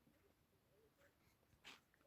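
Near silence: faint room tone, with one short faint crunch near the end.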